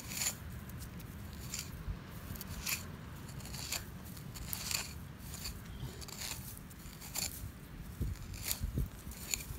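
Screwdriver blade scraping and crunching into dry, stony soil and digging out weed roots and grass: a string of short, irregular scratches, roughly one a second.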